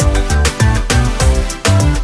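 Background music with a steady dance beat and a prominent bass line.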